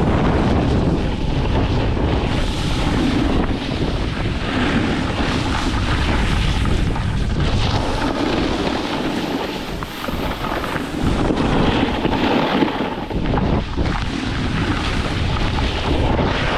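Wind buffeting the microphone during a downhill snowboard run, with the board scraping over the snow beneath it. The rushing eases a little about ten seconds in, then picks up again.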